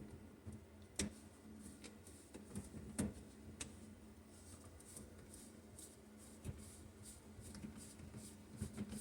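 Faint clicks and light scraping of the sink's P-trap fittings being screwed back on and hand-tightened, with three sharper clicks, about one, three and three and a half seconds in.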